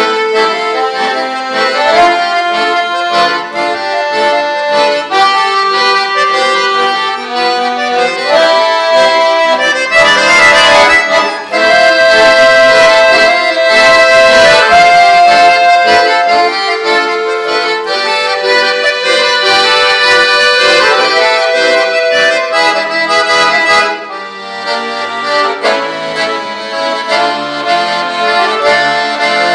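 Two piano accordions playing a duet: a melody of held and stepping notes over sustained chords, with short breaks between phrases.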